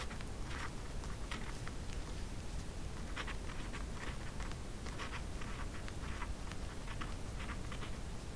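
Pencil writing on brown paper: short scratchy strokes of handwriting coming in irregular clusters.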